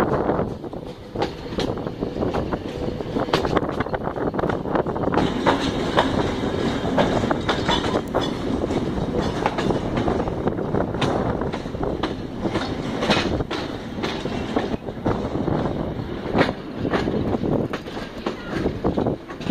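Passenger train running along the track: a steady rumble with the repeated clickety-clack of carriage wheels over rail joints, heard from an open carriage window.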